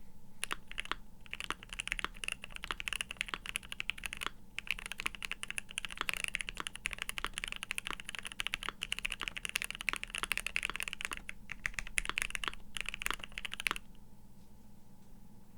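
Mechanical keyboard with Gateron Mini linear switches being typed on quickly: a dense, continuous clatter of keystrokes that stops about two seconds before the end.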